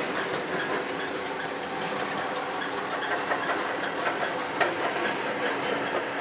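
Mortar pointing (grout) machine running: a steady mechanical clatter with a low hum and many small irregular clicks.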